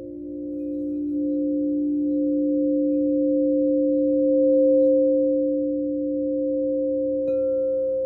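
A set of frosted quartz crystal singing bowls, tuned for a chakra sound bath, hums in several steady overlapping tones that swell and ease as a bowl's rim is worked with a mallet. A little past seven seconds another bowl is struck once with the mallet and rings in with a higher tone.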